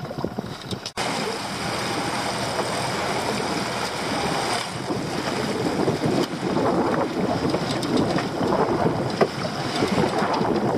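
Wind buffeting the microphone, with waves slapping against a small open boat: a steady rushing noise that starts abruptly about a second in.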